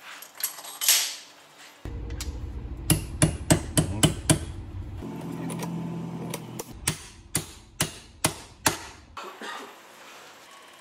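Steel hammer striking a tubular steel drift, about a dozen sharp metallic blows in quick runs, driving a tapered roller bearing onto a shaft of a ZF 16-speed truck gearbox. A steady low hum runs under the middle of it.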